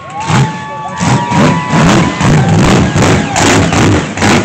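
Mega truck engine revving up and down in repeated bursts as the truck spins in the dirt, with a crowd cheering and music playing.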